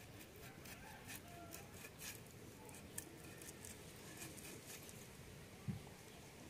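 Raw chicken being cut on a boti, a curved iron blade fixed upright on a base: faint soft clicks and wet scraping as the meat is pushed against the edge, with one low thump near the end.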